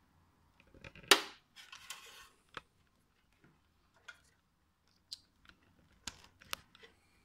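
Handling noise from wiring: a sharp click about a second in, then brief rustling and a scatter of light clicks as a plastic four-pin Molex power connector and its bundle of power wires and ribbon cable are moved about.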